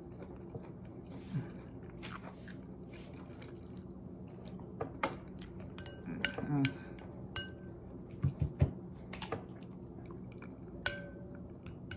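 Someone eating oatmeal: a metal spoon clicks and scrapes against a ceramic bowl several times, a few clinks ringing briefly, with chewing and mouth sounds between. A faint steady hum lies underneath.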